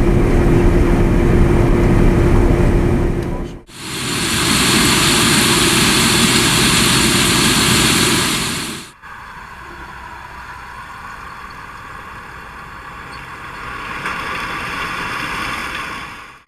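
Claas Lexion 770 TerraTrac combine harvester running while harvesting corn, heard in three abrupt cuts. The first has a low drone with a steady hum, the middle is much louder with a full hissing rush, and the last is far quieter, swelling slightly near the end.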